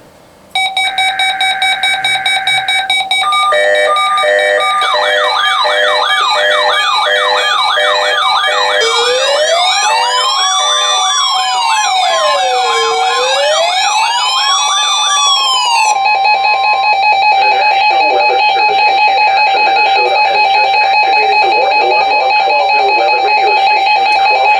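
Several NOAA weather radios sounding their alert alarms together, set off by the weekly test: layered electronic beeping tones, joined by a fast warble and then a slow rising-and-falling siren-like wail, ending in dense steady beeping.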